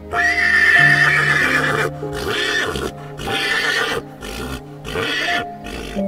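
A horse whinnying over soft background music: one long, high call of nearly two seconds, the loudest part, followed by a string of five shorter calls.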